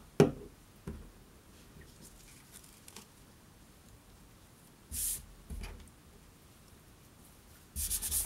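Paper and small objects being handled on a wooden tabletop: a sharp knock just after the start, then a lighter tap about a second in. Later come two short brushing sounds of paper sliding or rustling, one about five seconds in and a longer one near the end.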